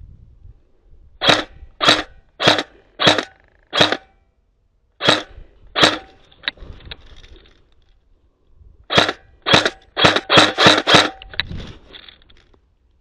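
Airsoft gun firing single shots, each a sharp crack: five at a steady pace, two more a second later, then a quicker string of about seven.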